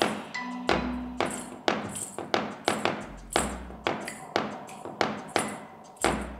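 Live percussive music with a steady beat: sharp, evenly spaced hits about two to three a second, many with a bright high ring, over deep bass thumps about every three seconds. A brief held low note sounds about a second in.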